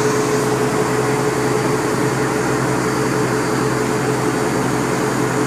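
Tugboat engine running steadily: a constant mechanical drone with an even hum and a held tone.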